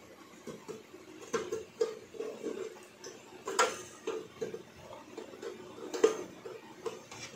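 Light metallic clicks and taps of long-nose pliers working on a rice cooker's thermostat switch bracket and spring, at irregular intervals, the sharpest about three and a half and six seconds in.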